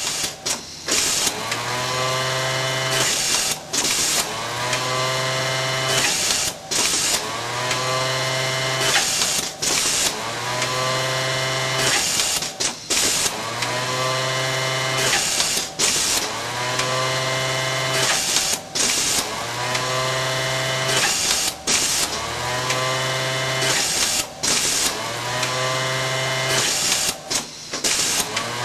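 Atlanta Attachment AP264 automatic bottom band setting workstation sewing in repeated cycles, about ten times, roughly every three seconds. Each cycle starts with a motor whine rising in pitch and levelling off, runs steadily for about two seconds, then stops with a short click before the next.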